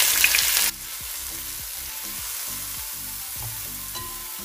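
Sliced red onions sizzling in hot coconut oil in a metal uruli: a loud sizzle that drops suddenly under a second in to a steady, quieter frying hiss, with a metal spatula stirring them near the end.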